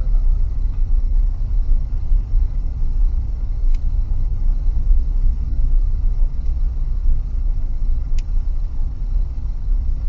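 Steady low rumble of a car driving at low speed, engine and road noise heard from inside the cabin. Two faint short high ticks come a few seconds apart.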